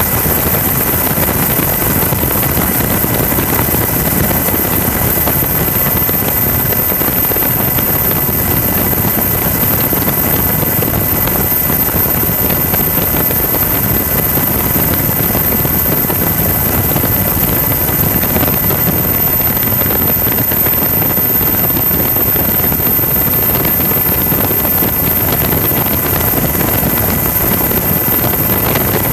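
Coast Guard helicopter running steadily: dense, unbroken rotor and engine noise with a thin steady whine on top.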